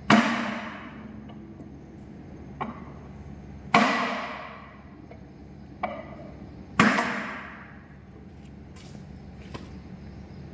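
Sledgehammer blows driving a stuck piston out of a Cummins engine block: three heavy metallic bangs about three and a half seconds apart, each ringing on for about a second, with lighter knocks between them.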